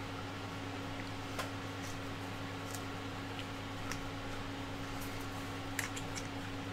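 A few faint, scattered clicks and taps from a 3D-printed plastic part being handled, over a steady low hum.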